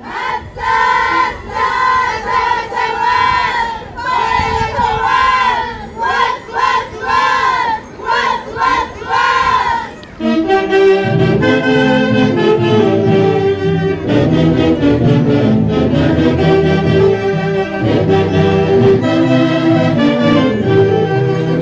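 A group of voices chants short, high, arching phrases in unison, one phrase about every second. About ten seconds in, a band strikes up a chonguinada dance tune and plays on steadily.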